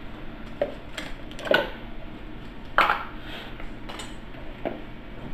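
Kitchen bowls and measuring cups being handled and set down on a counter: about five clinks and knocks, the loudest nearly three seconds in.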